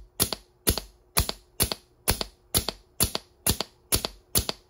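3D-printed high-pressure-air Nerf blaster core firing in rapid succession, about ten shots at roughly two a second. Each shot is a sharp pop of released air followed at once by a second click.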